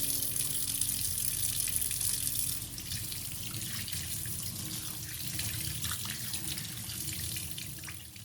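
Water running from a tap into a sink with light splashing. It gets quieter about two and a half seconds in and fades out near the end.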